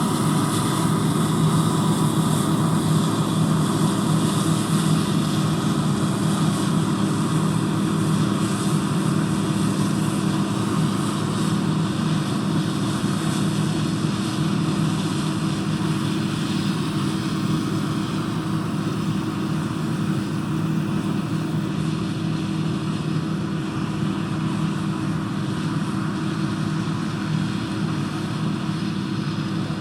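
A John Deere combine running steadily under harvesting load: a constant engine drone with machinery noise over it, slowly growing fainter.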